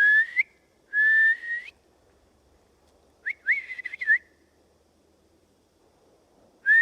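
A person whistling loud call whistles to draw a response from wildlife: two long rising whistles at the start, a warbling run of short up-and-down whistles about three seconds in, then a short rising whistle at the end.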